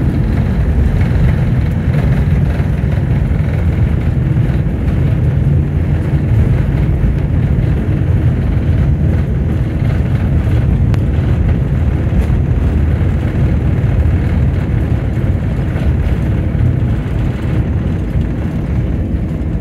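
Airliner cabin noise while the plane rolls along the runway after landing: a loud, steady low rumble of engines and wheels, easing slightly near the end.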